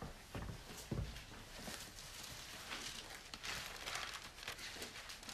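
Faint rustling and light crackling of thin Bible pages being leafed through, with a couple of soft handling thumps about half a second and a second in.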